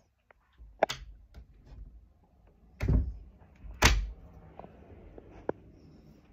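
Several sharp knocks and thumps, the two loudest and deepest about three and four seconds in, with lighter ones about a second in and near the end.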